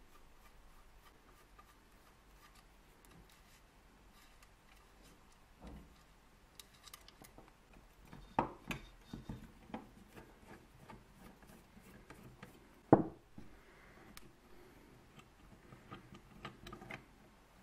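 Small metal and plastic parts of an old electric cooker being handled and fitted with a screwdriver: mostly quiet, with scattered light clicks and scrapes, a cluster of sharper clicks around the middle and one loud click about two-thirds of the way through.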